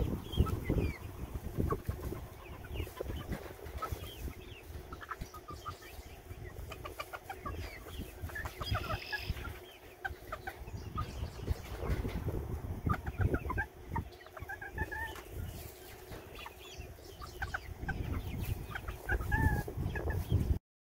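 Small flock of chickens clucking, with many short, scattered calls over a low rumble. The sound cuts off suddenly near the end.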